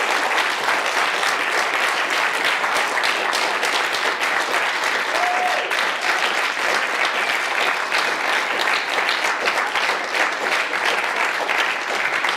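Audience applauding: dense, steady clapping from a full room that carries on without a break.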